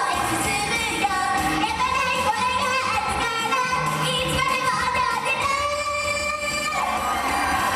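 Female voices singing a J-pop song live, with instrumental accompaniment.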